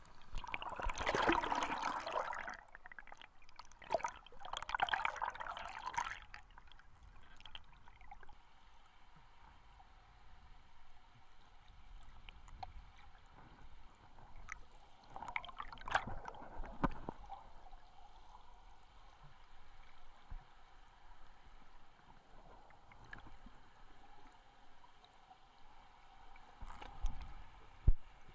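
Water heard through a submerged action camera: muffled gurgling and bubbling rushes in the first few seconds, again about halfway through and briefly near the end, over a faint steady underwater hiss.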